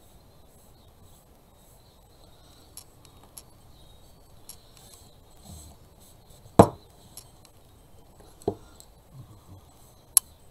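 Hand-crafting sounds on a hard work surface: light rustling and small taps as a rag is worked over a stained wooden piece, with one loud knock of something set down about two-thirds in, a smaller knock shortly after, and a sharp click near the end.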